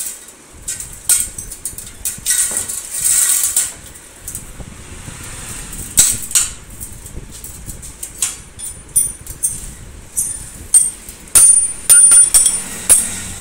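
Steel chair-frame tubes knocking and clinking against each other and a steel pan as they are handled and fitted, with a stretch of metal scraping a few seconds in. The knocks come thicker and louder toward the end, some with short metallic rings.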